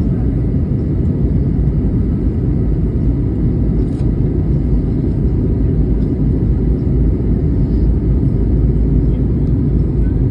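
Steady low rumble of airliner cabin noise, the engines and the rushing airflow heard from inside the passenger cabin in flight.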